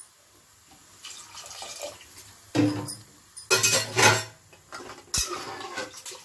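Flour-and-water slurry being poured into mutton nihari gravy in an aluminium pressure cooker, with clatters of a metal spatula against the pot and a short thump near the end.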